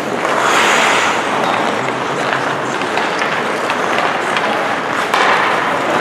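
Ice hockey game on the rink: skate blades scraping and carving the ice in a steady hiss, swelling louder near the start and again about five seconds in, with a few faint clicks of sticks and puck.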